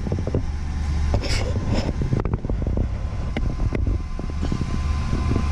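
A running machine's steady low hum, with scattered clicks and knocks as the camera is handled and swivelled round.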